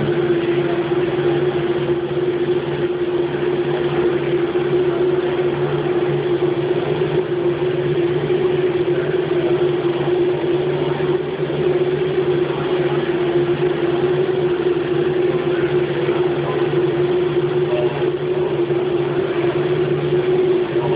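Haas CNC milling machine running steadily, with a constant mid-pitched whine over a lower hum and even machine noise.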